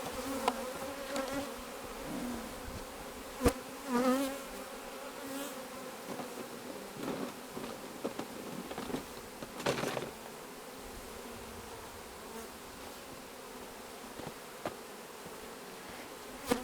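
A crowd of honeybees buzzing around an opened hive box: a steady hum with single bees swooping close past, rising and falling in pitch. The colony has just been opened and smoked and is disturbed. A sharp click comes about three and a half seconds in.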